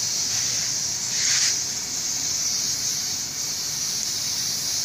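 Compressed-air paint spray gun hissing steadily, with a louder spray burst about a second in.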